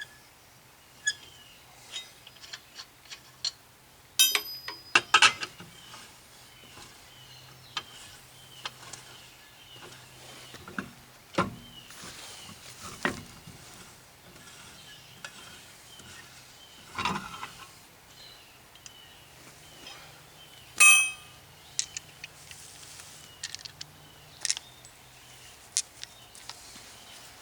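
Irregular metallic clinks and knocks of hand tools and parts being handled while working on a car's front end, with a few louder clatters. Birds chirp faintly in the background.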